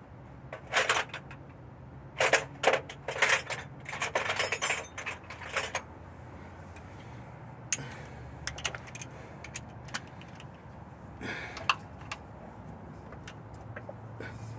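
Metal hand tools clinking and rattling in several bursts over the first six seconds, then scattered lighter clicks: a socket and extension being picked out and fitted onto a bellhousing bolt.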